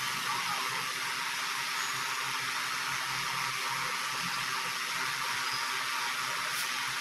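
High-speed electric fan running: a steady rush of air with a faint hum underneath.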